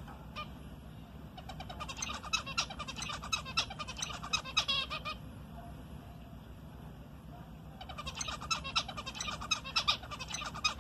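Zebra finch singing in two quick bouts of rapid, buzzy chattering notes, a pause of a few seconds between them.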